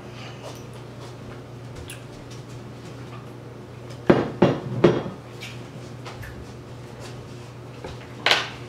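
Kitchen clatter of cutlery and dishes: three sharp knocks in quick succession about four seconds in and one more near the end, over a steady low hum.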